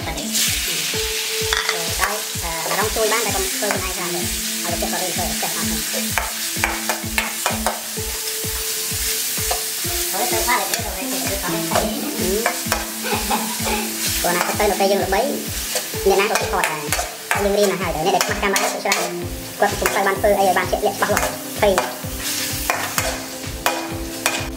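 Diced chicken breast frying in hot oil and garlic in a wok. The sizzle surges about a second in as the chicken goes in, then carries on while a metal spatula stirs and scrapes against the wok with many sharp clicks. Faint background music with a steady beat runs underneath.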